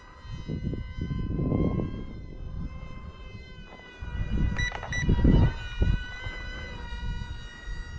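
Steady high-pitched whine of the BM F-22 RC plane's twin brushed electric motors and propellers in flight, its pitch shifting slightly a little past five seconds in. Wind buffets the microphone with low rumbles, about one to two seconds in and again about four to five and a half seconds in. Two sharp clicks sound about five seconds in.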